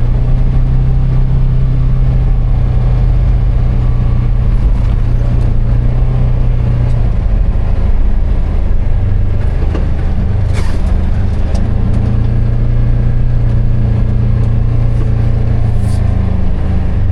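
Polaris Ranger 1000XP side-by-side's twin-cylinder engine running steadily while driving, easing off about halfway through and picking up again a couple of seconds later, with a couple of sharp knocks.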